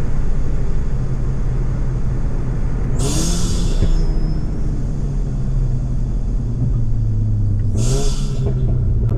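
Stage 3 Volkswagen Golf GTI Mk7's turbocharged 2.0-litre four-cylinder driving with a steady low drone through its decatted exhaust. Two short bursts of high hiss, about three seconds in and near the end, come as the turbo flutters and vents when the throttle is lifted.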